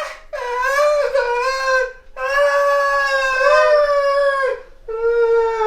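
A person's long, high-pitched screams of pain, drawn out one after another with short breaks between, as from someone being tortured.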